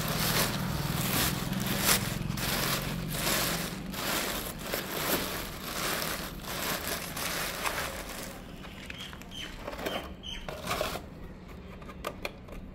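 Repeated gritty scraping and crunching strokes, about one or two a second, from dry microconcrete being worked. They ease off into scattered light clicks after about eight seconds.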